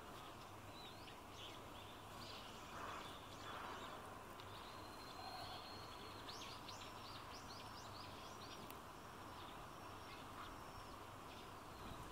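Faint chirping of small birds, many short high calls scattered over a steady background hiss, thickest between about six and nine seconds in.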